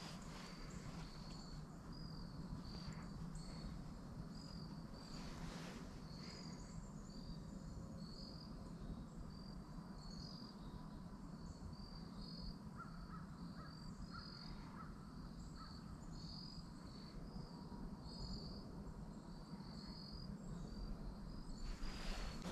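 Woodland ambience: short high chirps repeat steadily throughout, over a low rumble, with a few brief rustles.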